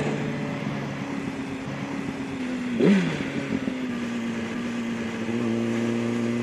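Yamaha R1's inline-four engine running at a steady pitch under way, over a rush of wind noise, with a short rise and fall in pitch about three seconds in.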